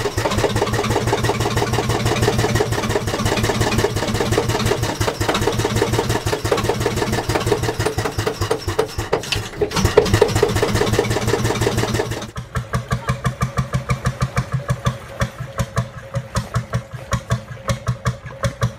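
Bolinder two-stroke single-cylinder hot bulb marine engine running, heard close up as a loud, fast, even beat. About twelve seconds in it changes abruptly to a quieter, slower beat of separate pulses, the engine heard from outside the boat.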